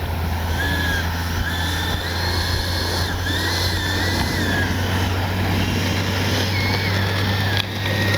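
The 70mm electric ducted fan of a Freewing BAE Hawk T1 RC jet whining in flight. Its pitch steps up and down several times as the throttle changes, over a steady low rumble.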